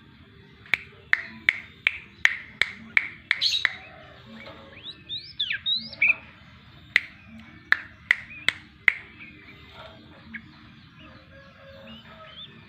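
Yellow-vented bulbul (trucuk) calling: a fast series of sharp, loud chip notes about three a second, a few swooping whistled notes around the middle, then another run of chips.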